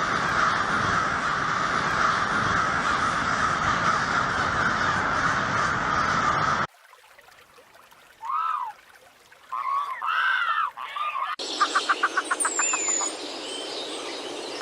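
Birds calling, in three abrupt parts. First a dense, steady chorus, then a few separate harsh calls that rise and fall in pitch, then rapid chattering calls with a few sliding whistles.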